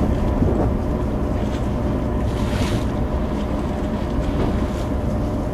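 Steady low drone of a ship's machinery at sea, with wind and water noise and a few steady hum tones; a brief rush of hiss comes about halfway through.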